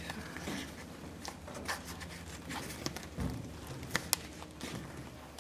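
Handling noise as a printed canvas is worked over a wooden stretcher frame: scattered rustles and light taps, a dull thump about three seconds in, and two sharp clicks a little after four seconds.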